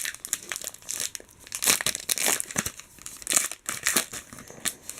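A trading card pack's wrapper being torn open and crinkled by hand, a run of irregular crackles and rustles.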